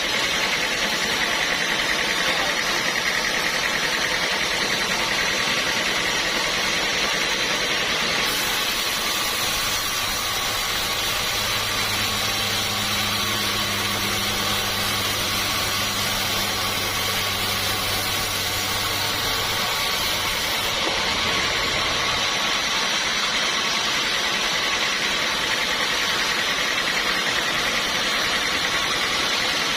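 Sawmill saw running steadily, a loud even machine noise with a high ringing band, as teak is sawn. A low hum joins about a third of the way in and drops out about two-thirds through.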